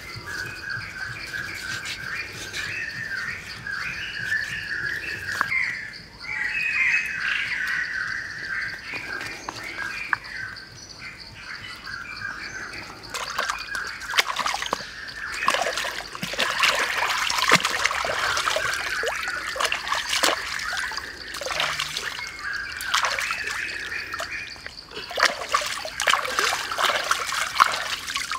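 Water splashing and sloshing as a pig head is rubbed and scrubbed by hand in a stream, in irregular bursts from about halfway on. Earlier, birds chirp repeatedly over a steady high-pitched background tone.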